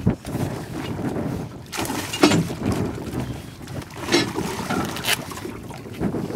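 A big northern pike thrashing at the surface beside a boat, splashing several times, about 2, 4 and 5 seconds in, with wind rumbling on the microphone.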